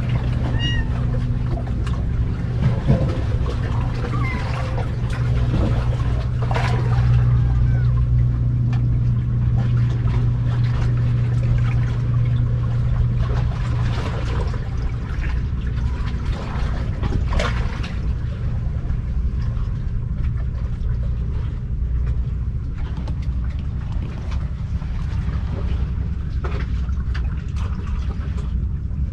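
A steady low drone with a humming tone that eases after about fourteen seconds, under a wash of noise and light clicks. A few faint, high kitten mews come in the first seconds.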